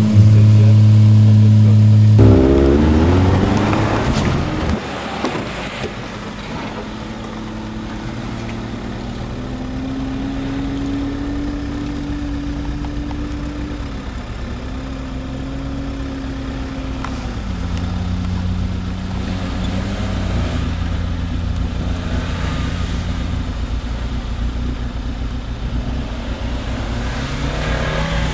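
Off-road 4x4 engines. A Jeep Cherokee is held at high revs as its wheels spin in loose sand, then the revs fall away. After that a Suzuki Samurai's engine pulls steadily up a sand hill, its pitch stepping up and down with the throttle and rising again near the end.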